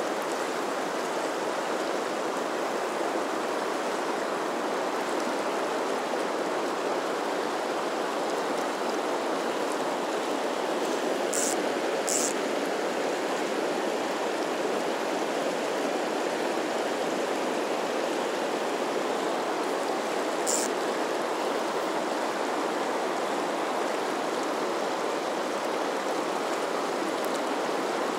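Firehole River current rushing and rippling right beside the microphone, a steady wash of flowing water. Brief high ticks sound twice about eleven and twelve seconds in, and once more about twenty seconds in.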